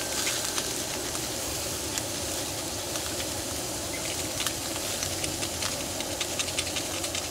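Beef slices sizzling in a cast-iron skillet over a gas burner: a steady hiss with scattered crackling pops.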